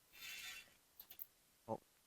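Near silence with a faint brief hiss, a few light clicks about a second in, and a very short voiced hum near the end.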